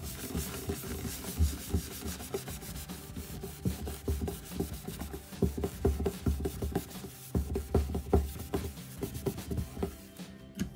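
Cloth rubbed over a varnished wooden tabletop in quick, uneven strokes, with soft knocks of the hand against the wood. Sprayed perfume is being worked into a white water stain to wipe it out.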